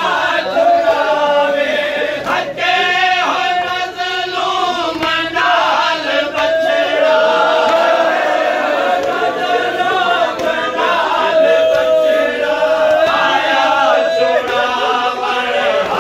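Crowd of men chanting a noha, a Shia mourning lament, together in unison, the melody carried on long held notes.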